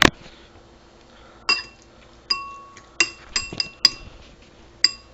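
A utensil clinking against a dish about seven times at irregular intervals, each clink ringing briefly, after a sharp knock at the very start.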